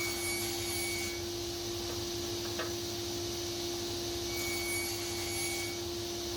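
An electric woodworking machine running steadily with a constant hum, working timber. Twice a higher whine sounds over it for about a second.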